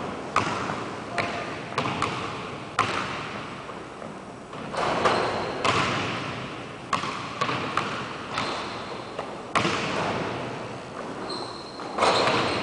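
Basketball bouncing on a hardwood gym floor, irregular dribbles with a ringing echo of a large hall after each bounce. A short high squeak comes near the end.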